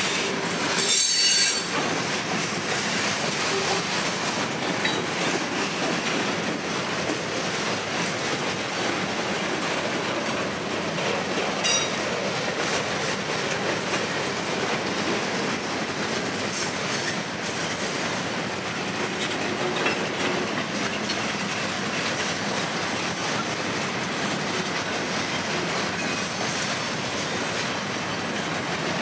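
Freight train of open-top hopper cars rolling past at close range with a steady rolling rumble and rattle of wheels on rail. A sharp, high wheel squeal about a second in is the loudest moment, and a shorter squeal comes near the middle.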